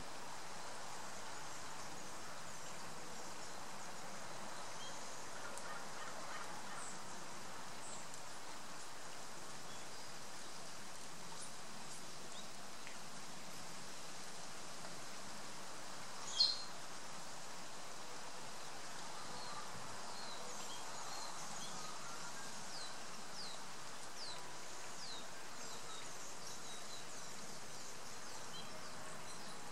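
Steady outdoor background hiss with small birds chirping now and then: one louder chirp about sixteen seconds in, and a run of quick, high chirps in the last several seconds.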